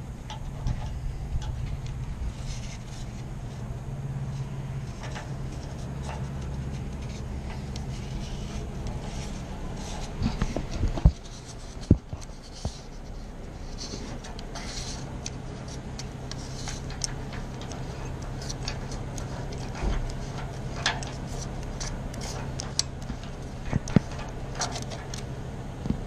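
Small metal clicks, scrapes and knocks of a brass mortise lock cylinder being unscrewed by hand from a Herculite door's aluminium lock housing, with two sharper knocks about eleven and twelve seconds in. A steady low hum runs underneath.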